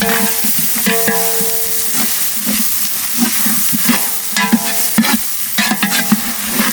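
Chopped tomatoes frying in hot oil with onion and spice masala, sizzling steadily while a ladle stirs and scrapes the pot about twice a second, some strokes making the pot ring briefly.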